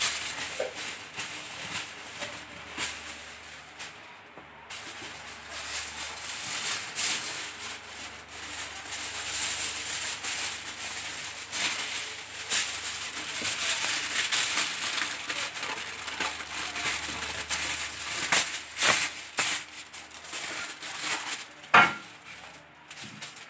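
Aluminium foil crinkling and crackling as it is unrolled and pressed into a baking tray, with a few sharper crackles near the end.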